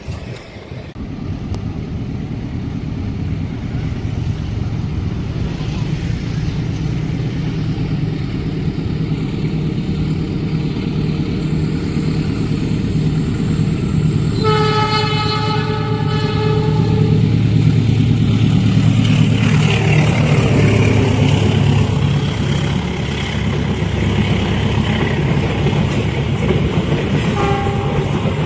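Train approaching and passing at speed, its rumble building steadily and loudest past the middle. The locomotive's horn sounds for about two seconds about halfway through, and gives a short toot near the end.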